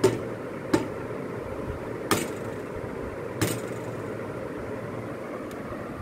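Four sharp taps spread over the first three and a half seconds: a hen's egg knocked against the rim of a plastic container to crack it, over steady background noise.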